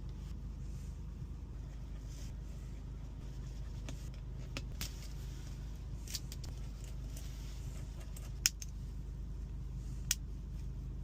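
Steady low hum of an idling vehicle engine, with a few short sharp clicks scattered through it, the loudest a little past the middle.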